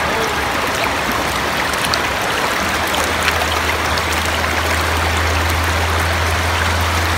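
Shallow rocky river rushing over and around stones in small rapids: a steady, even hiss of flowing water. A low steady rumble joins about two and a half seconds in.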